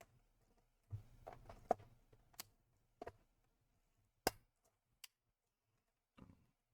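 Faint, scattered plastic clicks and taps as a laptop keyboard is fitted and pressed into its case: a few soft knocks about a second in, then single sharp clicks, the loudest a little past four seconds.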